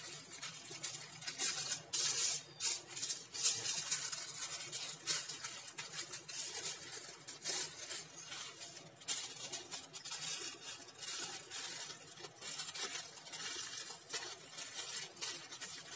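Aluminium foil crinkling and crackling as hands fold, crimp and press it tightly around a parcel of food, with uneven sharp crackles throughout.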